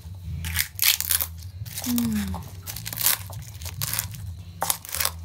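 Bamboo pestle pounding and crushing crab pieces and chillies in an aluminium bowl: irregular thuds and crunches, two or three a second, over a steady low hum.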